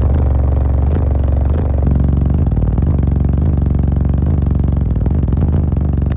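Bass-heavy music played loud through a car audio system of fourteen 18-inch subwoofers, with deep bass notes changing every second or so.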